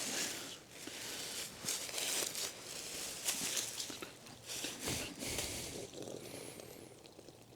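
Dry leaf litter rustling and crunching in irregular bursts as the downed deer is handled and turned over.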